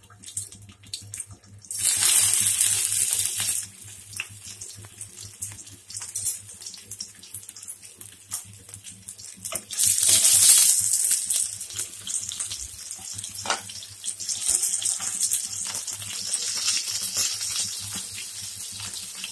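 Boiled bafla dough balls sizzling as they are set into hot oil on a tawa: a loud burst of sizzle about two seconds in and another about ten seconds in as balls go into the oil, then a lighter, steady frying sizzle.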